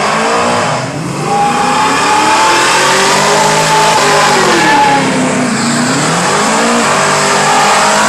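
Classic car doing a burnout: the engine is held at high revs, its pitch rising and falling several times, while the spinning rear tyres hiss against the pavement.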